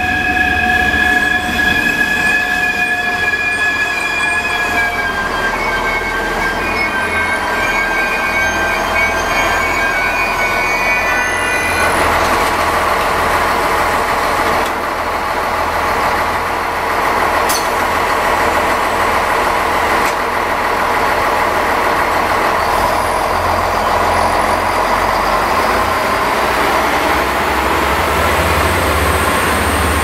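DB class 648 diesel multiple unit approaching and running past close by. For the first dozen seconds a high whine falls slightly in pitch; then from about 12 seconds in the louder, steady rush of the passing train takes over, over a low engine hum.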